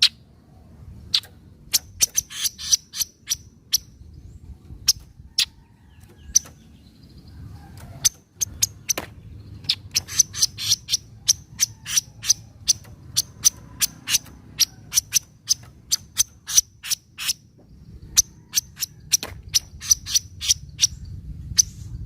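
Kaso-kaso bird giving its 'nyecret' chattering call: sharp, dry ticks, singly and in quick runs of several a second, over a faint low rumble.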